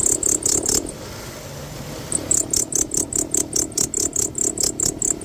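Fast rhythmic rattling chatter, about seven beats a second, from the front of a running 2013 Lexus ES350's V6 engine with the A/C on. It drops away for about a second and a half near the start, then comes back. The mechanic traces this A/C-on noise to the alternator's one-way clutch pulley, which he finds seized.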